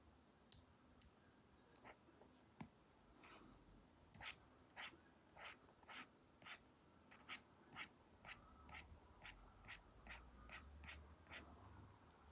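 Apple Pencil tip scratching over an iPad screen fitted with a paper-like matte film: a few light taps at first, then quick short strokes about two a second from about four seconds in.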